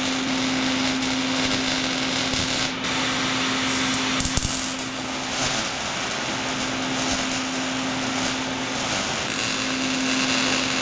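Angle grinder running steadily against steel, grinding down welds on a square-tube shelf frame, with a steady motor hum under a hissing grind that changes briefly about three seconds in.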